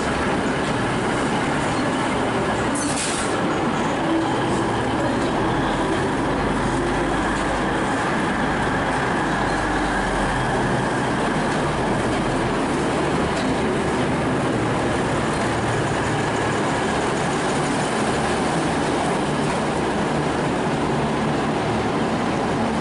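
V/Line VLocity diesel multiple unit rolling slowly past at close range, its underfloor diesel engines running and its wheels rumbling steadily on the rails, with a deeper rumble in the middle as the bogies pass.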